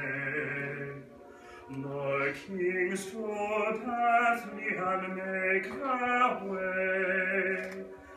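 A man singing solo, holding long notes that step up and down with a slight waver, with a brief break about a second in.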